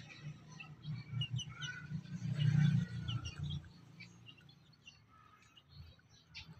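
Young free-range chickens peeping while they feed: many short, high chirps in quick succession, thinning out after about four seconds. A low rumble runs under them and stops about four seconds in.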